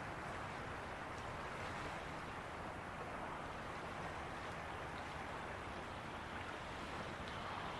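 Faint, steady outdoor background noise: an even hiss and rumble with no distinct events.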